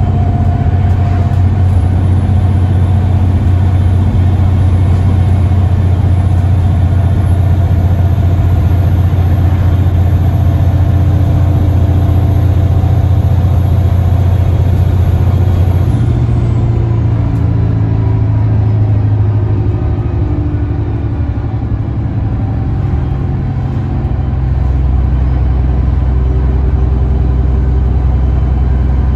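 ADL Enviro 300 single-deck bus's diesel engine heard from inside the passenger saloon, running hard at speed with a high whine over it. About halfway through, the whine stops and the engine note falls away, then a deep low drone builds again a few seconds before the end.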